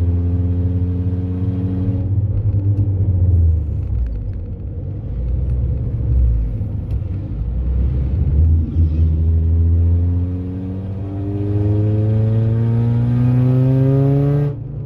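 Honda car engine with a damaged exhaust, running loud while driving. The engine note falls about two seconds in, then later climbs steadily as the car accelerates and drops suddenly near the end, like a gear change.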